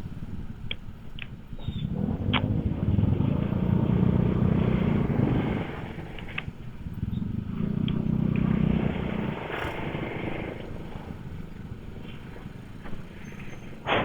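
Motorcycle engine running, swelling louder twice as it speeds up, about two and seven seconds in, then easing off.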